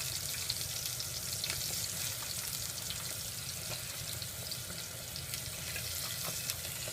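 Mushrooms sizzling as they fry in a pan: a steady hiss with scattered small crackles.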